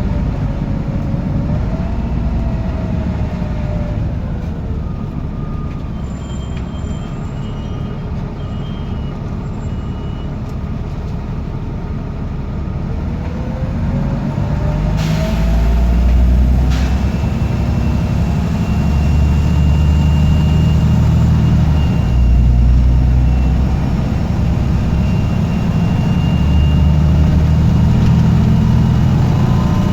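Diesel bus engine running with a turbocharger whistle whose pitch falls and rises with the revs. About halfway through, the engine grows louder and the whistle climbs as the bus pulls away, with a short hiss of air at the same moment.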